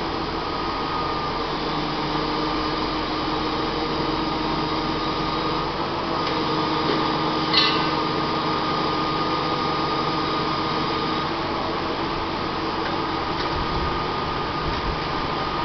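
Service-truck crane's engine and hydraulic system running steadily, with a constant high whine over a low hum. A single short click about seven and a half seconds in.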